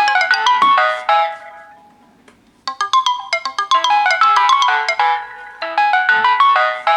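Alarm tones from two Samsung Galaxy phones, a Galaxy S I9003 and a Galaxy S2, sounding at the same time: quick, bright melodic notes. They fade out and pause about two seconds in, then start again.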